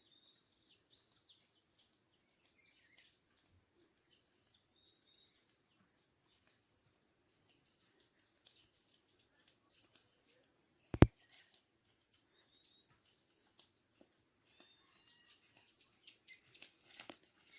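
Steady high-pitched insect drone, like crickets, with scattered faint bird chirps. One sharp click or knock comes about eleven seconds in.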